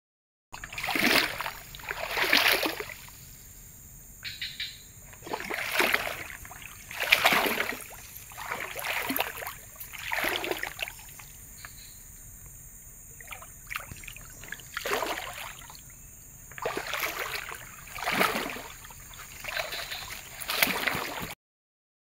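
Water splashing and sloshing in an uneven walking rhythm, about one splash a second: footsteps wading through shallow flood water.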